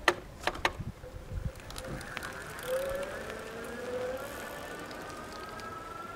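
A few sharp clicks as the e-bike sets off, then the whine of its electric drive motor, rising slowly and steadily in pitch as the bike accelerates.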